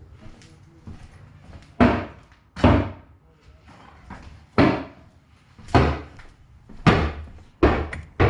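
A series of heavy thuds or knocks, about seven, coming at uneven intervals roughly a second apart, each sharp at the start and fading quickly.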